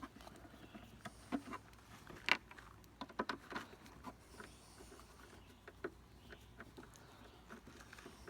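Faint, irregular clicks and taps as a Torx bit works the two bolts holding a tail-light assembly, with a short cluster of clicks about three seconds in.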